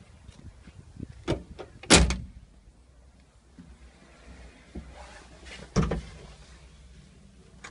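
Cab door of a Hitachi ZX-30 mini excavator being handled: a knock about a second in, a louder clunk at two seconds, and another clunk near six seconds.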